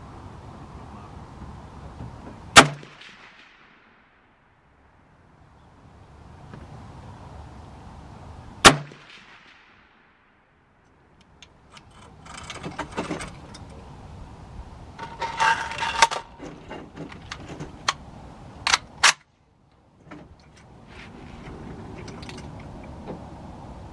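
Rifle shots on an outdoor range: two loud single shots a few seconds apart, then a stretch of rapid, quieter cracks, then two more sharp shots close together.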